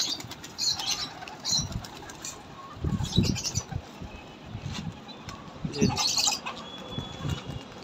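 Domestic pigeons' wings flapping in several separate bursts as the birds take off and fly overhead.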